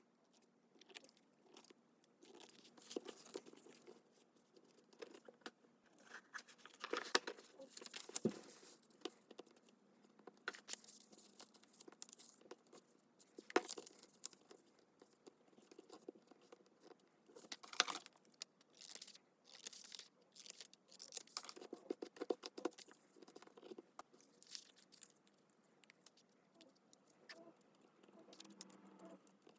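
Paper crafting handling sounds: paper rustling and crinkling, with scattered taps and clicks at an uneven pace.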